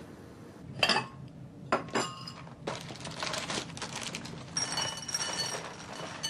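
Dishes and cutlery clinking at a table: a few sharp knocks of a ceramic bowl, then a run of clattering with light ringing clinks.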